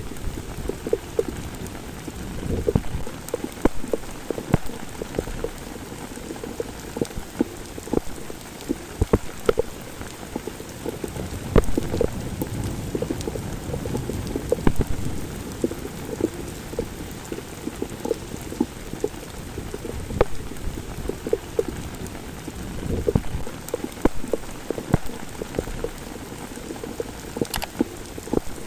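Heavy rain pouring onto a street, a steady dense hiss with many sharp individual drops and splashes ticking through it.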